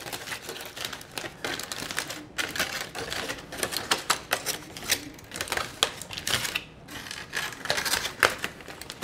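Aluminum foil being unwrapped by hand, crinkling and crackling in quick, irregular bursts.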